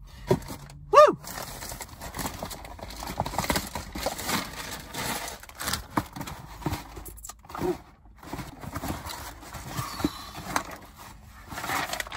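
A brief high-pitched vocal squeal that rises and falls about a second in. Then a cardboard shoebox is handled and opened: quick scrapes, taps and rustling of the box and its tissue paper.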